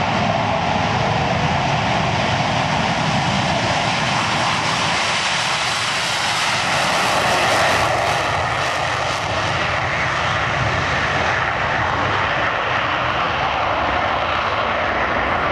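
Four F/A-18 Hornets taking off together in afterburner, their twin GE F404 turbofan engines making loud, steady jet noise that is loudest about halfway through as they pass.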